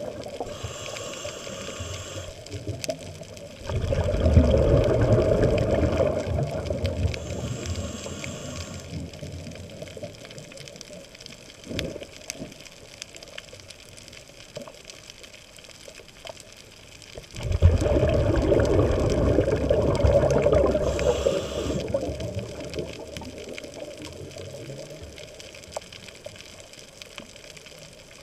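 Scuba diver's regulator breathing underwater: short hissing inhales, and twice a long burst of bubbling exhaled bubbles lasting several seconds. A single sharp click comes about halfway through.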